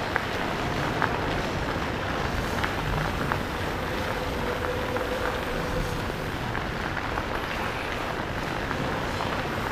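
Fat bike tyres rolling steadily over a paved path, a constant rushing noise with a few small clicks.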